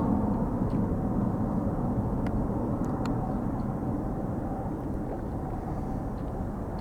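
Boeing 777-200ER's Rolls-Royce Trent engines rumbling at takeoff power, slowly fading as the jet climbs away.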